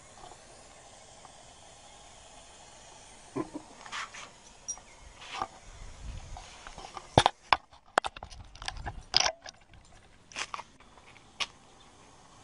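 Hognose snake hissing in short bursts as it bluffs, mixed with several sharp knocks that are loudest in the middle.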